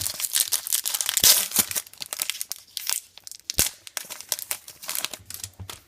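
Wrapper of a trading-card pack being torn open and crinkled, dense crackling for the first two seconds, then scattered crackles and a sharp click about three and a half seconds in.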